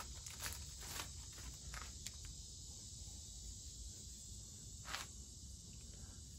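A few faint, short swishes over a low steady background hiss, the clearest about five seconds in: a paintbrush spreading citrus gel paint stripper over a car's painted rear fender panel.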